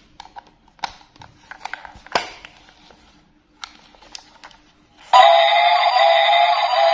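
Small plastic clicks and taps as a battery cover is fitted on a battery-powered Thomas & Friends toy engine, then about five seconds in the toy switches on and its small speaker plays a loud electronic tune.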